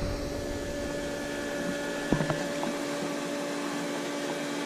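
Steady hum of a pool pump motor running, with one sharp click about two seconds in.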